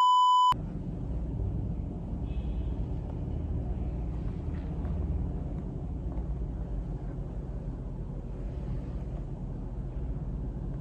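A steady 1 kHz test-pattern beep for about half a second at the start, then a low steady rumble with faint small rustles from a phone microphone in a quiet room.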